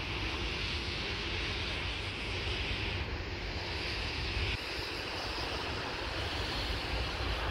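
Freight train of open-top wagons rolling past close by: a steady rumble of wheels on rail with a hiss over it, dipping slightly about four and a half seconds in.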